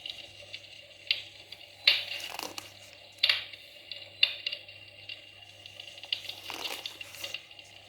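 Paper catalogue pages being handled and turned: irregular sharp crackles and rustles about once a second, over a faint steady low hum.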